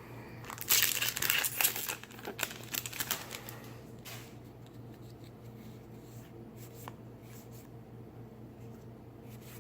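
Foil wrapper of a Magic: The Gathering booster pack crinkling and tearing for about a second and a half, then a few brief rustles and soft shuffling of cards over a steady low hum.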